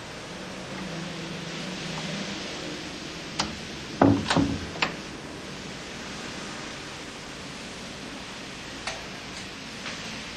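A wooden door creaks and shuts, with a low knock and the click of its latch about four seconds in, over a steady hiss; a few faint clicks follow near the end.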